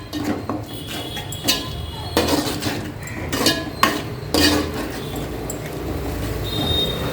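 A spoon stirring and scraping onion-tomato masala in a cooking pot, knocking and clinking against the pot's side at irregular intervals, most often in the first few seconds.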